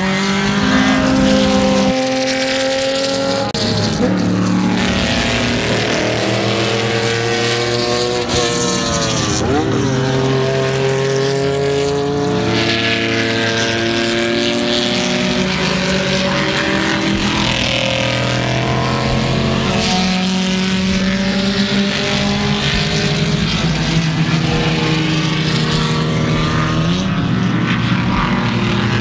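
Several race car engines running hard around the circuit at once, their notes rising and falling in pitch as they accelerate and change speed, with sweeping changes in pitch around 4 and 10 seconds in as cars go by.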